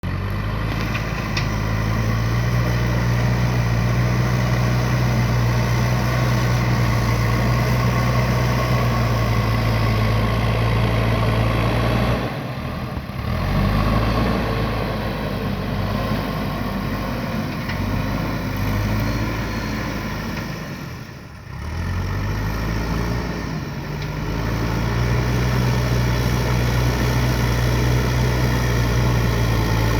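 Diesel engine of a JCB 3DX backhoe loader running steadily, its note dropping and changing several times midway before settling back to a steady run near the end.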